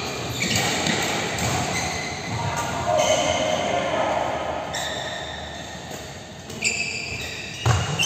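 Badminton play on an indoor court: high squeaks of court shoes on the synthetic floor, and sharp racket strikes on the shuttlecock, the loudest near the end.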